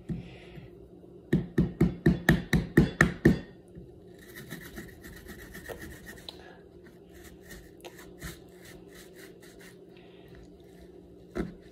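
A small kitchen knife sawing back and forth into a whole apple: a quick run of about ten loud strokes, then fainter, more irregular strokes as the blade works down through the fruit.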